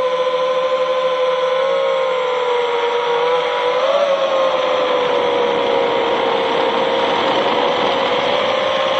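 FPV quadcopter's brushless motors and propellers whining in flight: a steady pitch that rises briefly about four seconds in, over a hiss of rushing air.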